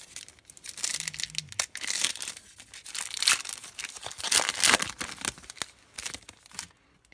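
Trading-card pack wrapper crinkling and tearing as it is ripped open by hand and the cards are pulled out; the rustling is irregular and stops shortly before the end.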